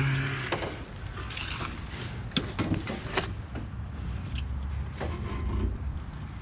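Irregular knocks, clicks and rubbing as gear is pulled and handled in a small boat.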